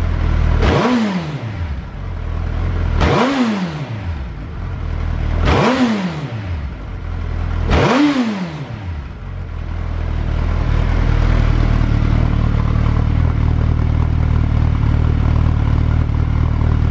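Suzuki GSX1300R Hayabusa's inline-four engine revved through a Striker titanium full exhaust: four quick throttle blips about two and a half seconds apart, each rising and dropping back. About ten seconds in, it settles into a steady idle.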